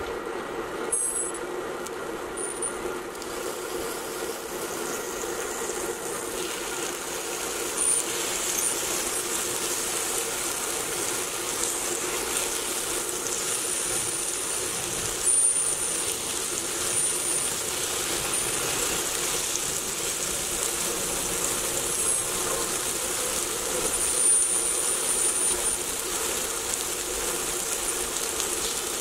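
Slices of firm tofu sizzling in hot sesame oil in a skillet, the sizzle thickening a few seconds in as more slices go into the pan, with a few short clicks of metal tongs setting them down. A steady hum runs underneath.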